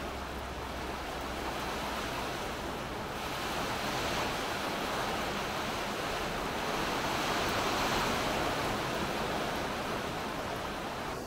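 Steady rain falling, an even hiss that swells a little about three seconds in and again around eight seconds.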